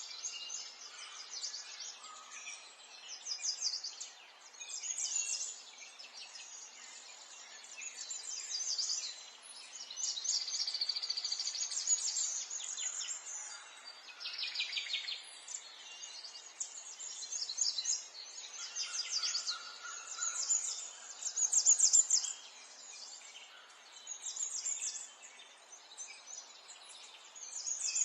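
Many small birds singing and chirping at once, overlapping phrases of fast high trills and twitters that come and go, over a faint steady background hiss.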